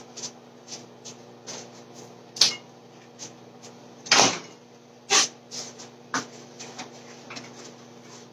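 Kitchen handling noises: a string of knocks, taps and clunks as things are moved about on the counter and stove, the loudest about two and a half and four seconds in, over a steady low hum.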